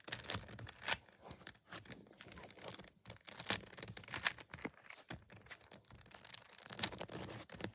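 3x3 Rubik's cube being turned by hand: its plastic layers click and scrape in quick, irregular turns.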